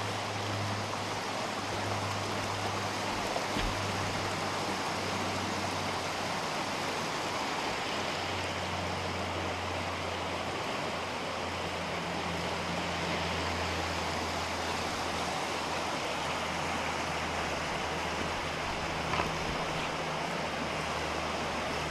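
Steady rush of a river flowing below a footbridge, with a couple of soft knocks.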